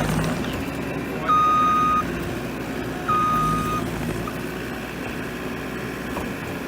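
A loader's reverse alarm gives two long, steady beeps about two seconds apart as the machine backs up, over its running engine.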